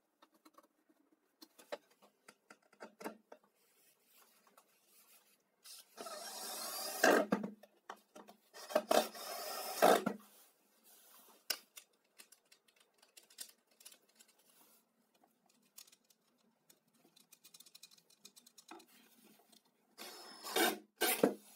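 A jigsaw being handled on a plywood tabletop, not running: scattered clicks and knocks, with three loud stretches of scraping and rubbing, two near the middle and one near the end.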